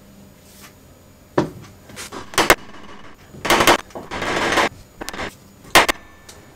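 Hammer blows on a steel axle, struck irregularly about eight times, with a short rough scraping rattle about four seconds in.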